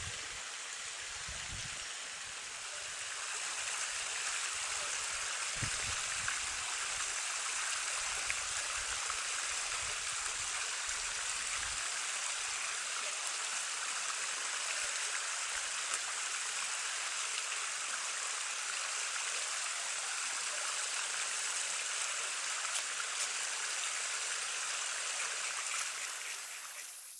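Steady rush of a creek running over rocks, with low rumbling on the microphone during the first dozen seconds. It drops a little in level near the end.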